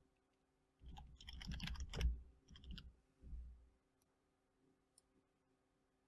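Typing on a computer keyboard: a quick flurry of keystrokes lasting about three seconds, followed by a few faint separate clicks.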